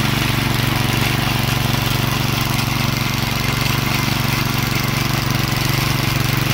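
The McLane edger's 3 hp Briggs & Stratton side-shaft engine running at a steady speed, with fresh oil in the crankcase.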